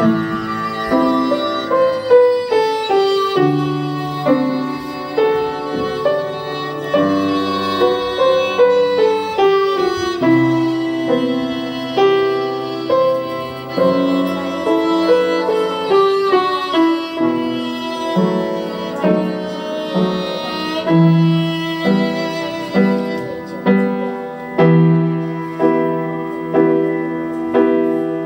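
Instrumental music: a violin melody over piano accompaniment, a steady run of notes with several falling phrases.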